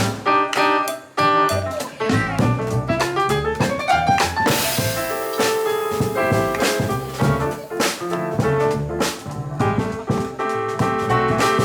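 Live jazz trio of piano, double bass and drum kit playing an instrumental passage with no singing. A rising run leads into a cymbal crash about four and a half seconds in.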